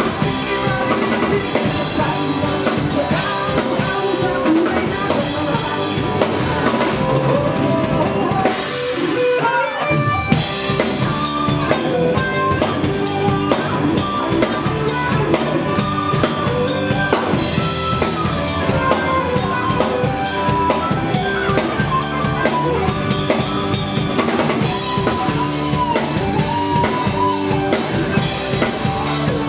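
A live band playing, led by a drum kit keeping a steady beat under guitars and a melody line. About ten seconds in the music thins out briefly, then the full band comes back in on a loud hit.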